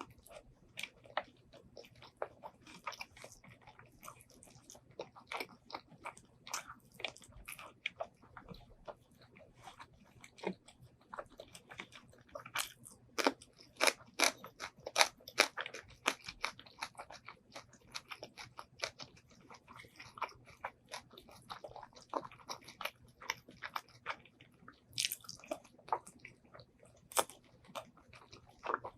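Close-miked chewing and biting of braised pork ribs and white rice: a run of short wet smacks and crunchy clicks, busiest and loudest around the middle.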